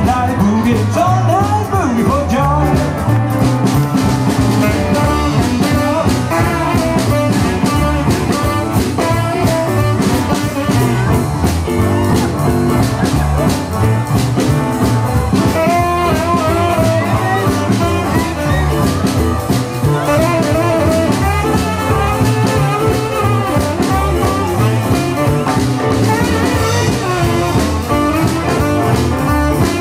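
A live jump-blues band plays an instrumental passage of a boogie at full volume. Tenor saxophone, electric guitar, upright bass and drum kit keep a steady, driving beat.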